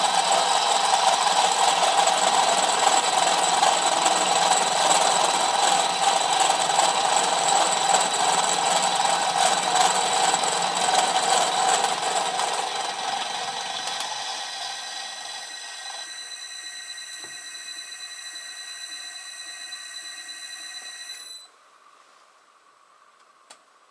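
A 25 mm 60-degree angular cutter in a 13 mm drill chuck cutting the end face of SS400 mild steel: a loud, harsh machining noise with a steady high whine through it. The cutting fades out over a few seconds, leaving the spindle running with a steady whine that stops abruptly about 21 seconds in, followed by one small click.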